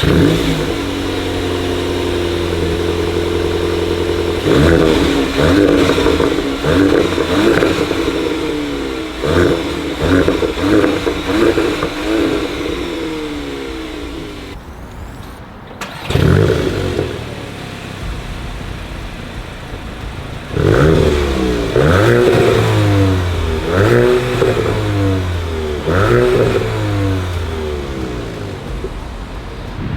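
Stationary Mk8 VW Golf performance models' 2.0-litre turbocharged four-cylinder engines and exhausts. The first idles steadily, then is blipped in a series of quick revs that fall back to idle. After a short break halfway, a second car starts up and is revved several times.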